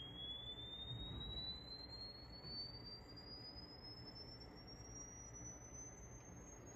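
Faint pure test tone sweeping slowly and steadily upward in pitch through the treble: a sine sweep for checking the frequency response of an Akai GX-9 cassette deck during calibration. A low hum sits underneath.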